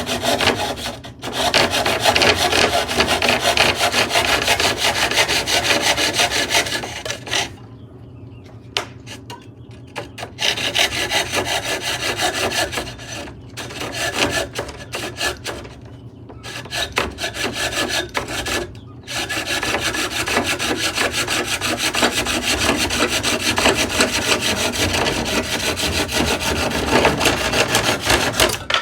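A tool rasping against wood, as in sawing or filing, in long continuous spells broken by a few short pauses.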